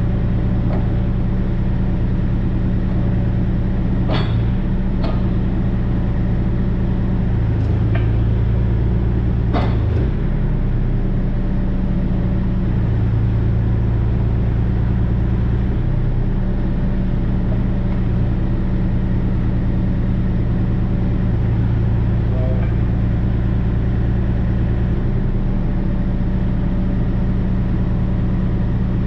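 Kubota KX040-4 mini excavator's diesel engine running steadily while the bucket is curled back. A few sharp knocks come in the first ten seconds.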